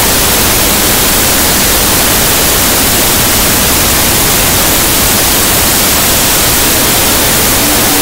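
Grain loader running: a loud, steady rushing noise with no pitch or rhythm, unchanging throughout.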